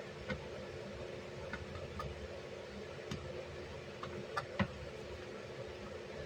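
Scattered faint clicks and taps of plastic model-kit parts being handled, about half a dozen, the loudest pair near the end, over a steady low room hum.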